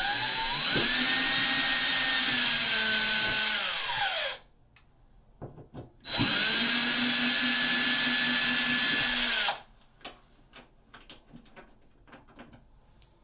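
Cordless drill backing out the screws of an old toilet paper holder's wall bracket: two runs of a steady motor whine, about four seconds and three and a half seconds long, each rising in pitch as it spins up and dropping as it stops. A few faint clicks of handling follow near the end.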